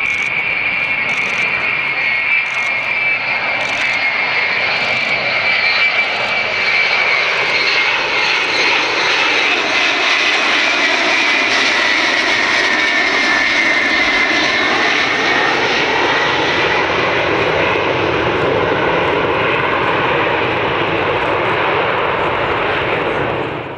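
Four turbofan engines of a Xian Y-20A transport, D-30KP-2s, running steadily as it flies low past with gear and flaps down: a loud continuous jet roar with a high whine that sinks a little in pitch about halfway through.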